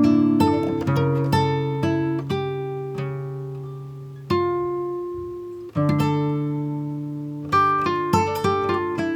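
Instrumental background music of plucked strings: notes plucked and left ringing, a slow sustained stretch in the middle, then quicker plucked figures again near the end.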